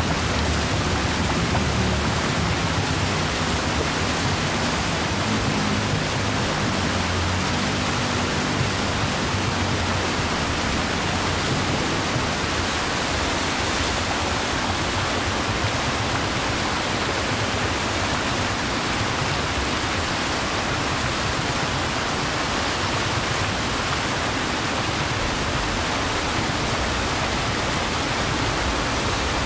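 Fountain water jets splashing and falling: a steady, dense rush of spray.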